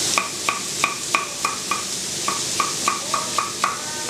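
Chef's knife chopping a red bell pepper on a wooden chopping board: about a dozen knocks, roughly three a second, each with a short ring, and a brief pause about two seconds in. Meat sizzles in a frying pan underneath.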